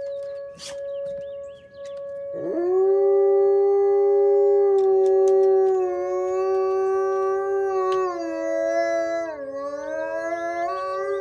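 Wolfdog howling, starting about two seconds in with a quick rise into one long held note that steps down and wavers near the end. Behind it a steady two-tone outdoor warning siren sounds throughout.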